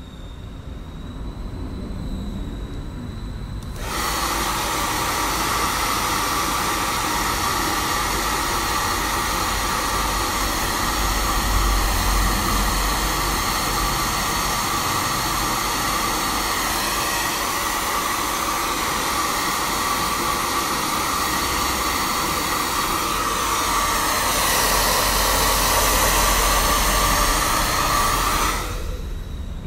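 Handheld hair dryer blowing: a steady rush of air with a whining motor tone. It starts abruptly about four seconds in, grows a little louder in its last few seconds, and stops abruptly just before the end.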